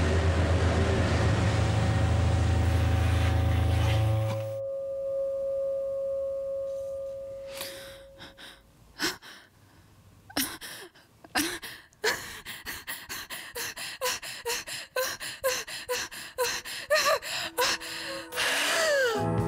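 Horror-film sound design: a loud low rumbling drone that cuts off about four and a half seconds in, leaving a single held tone that fades away. Then scattered sharp clicks that thicken into a rapid run, ending in a falling glide in pitch.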